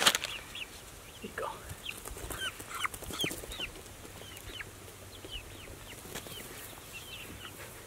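Young chickens peeping: a string of short, high, falling chirps from several birds, more of them in the first half.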